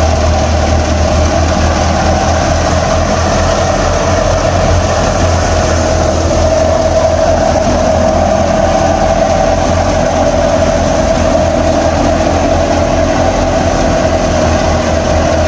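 Tractor engine running steadily while driving a wheat threshing machine. It is a continuous loud low drone with a steady higher hum over it, unchanging throughout.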